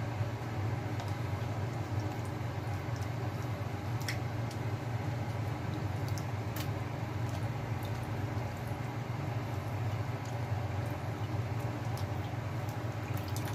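Pot of fish sinigang broth simmering on the cooker, with a few sharp ticks over a steady low hum.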